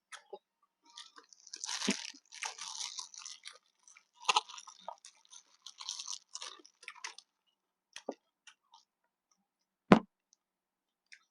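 A person chewing and crunching a mouthful of koi pla, a Lao raw tilapia salad, in crackly bursts, then a few small clicks. A single sharp knock about ten seconds in is the loudest sound.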